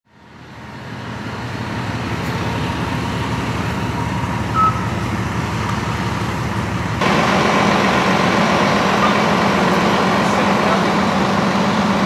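Fire truck's engine running steadily. It fades in at the start and turns abruptly louder about seven seconds in, with one short high beep near the middle.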